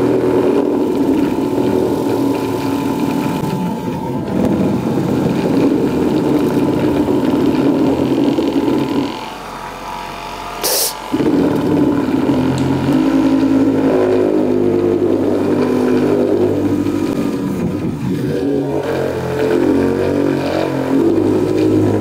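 Cordless car polisher running steadily on its low 3300 rpm setting, its waxing pad spreading wax over car paint. About ten seconds in it drops quieter for a moment, with a single sharp click near eleven seconds, then runs on.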